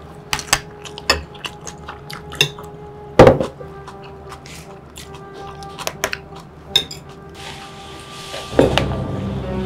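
Spoon clinking and scraping against a dinner plate in quick irregular taps, with one loud clatter about three seconds in and a louder knock near the end, over soft background music.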